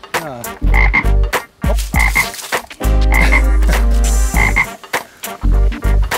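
Frogs croaking in a steady low chorus, with a short high double note repeating about every second. Footsteps crunch over dry leaves and gravel.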